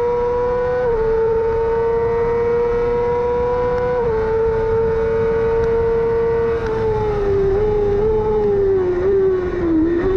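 Yamaha R6 600 cc inline-four racing engine at very high revs under full throttle. Its pitch holds high with two brief dips about one and four seconds in, then falls in steps from about two-thirds of the way through as the bike slows.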